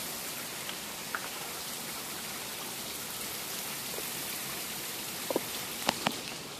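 Spring water trickling and splashing down a rock face, a steady rushing hiss. A few sharp clicks near the end.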